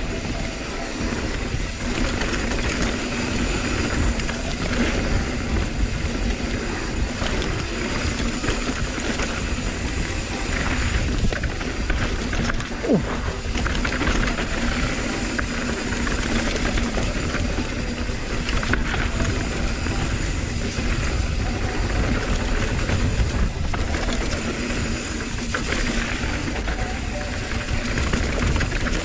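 An aluminium hardtail mountain bike being ridden fast down a trail: wind rushing over the microphone with a steady low rumble, mixed with tyres rolling over dirt and the bike rattling.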